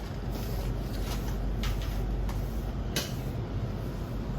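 Steady low rumble with about five brief rustles of plastic snack packets being handled.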